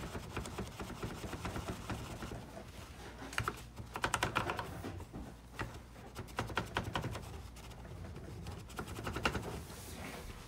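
Screwdriver tip wrapped in a paper towel scrubbing and tapping inside the plastic seat of an Epson 8550 printer's PE sensor: quick runs of small clicks and scrapes, like light typing.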